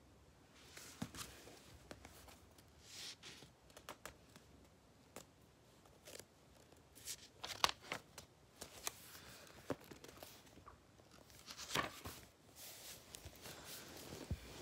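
Quiet, irregular rustling and small clicks of a book and bedding being handled and shifted.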